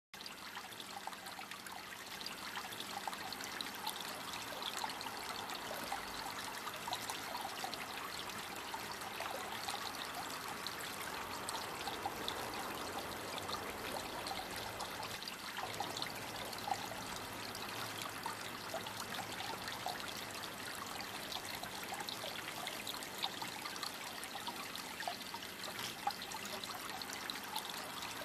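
Small garden fountain's water trickling and splashing steadily onto pebbles, with many little drips and splashes.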